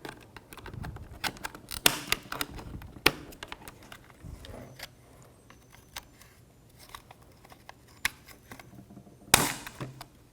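Irregular clicks and snaps of a car door latch and its cover being handled and worked by hand, with sharper clicks about two and three seconds in and the loudest one near the end.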